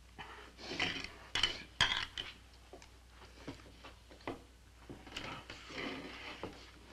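A utensil scraping and clinking on a plate as someone eats, in a run of short scrapes and clicks.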